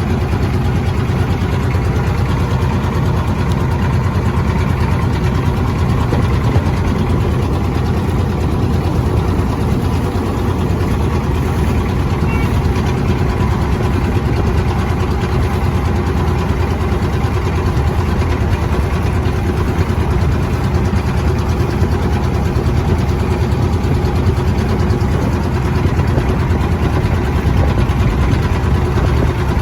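Small boat's engine running steadily at a low, even pace with an unchanging drone.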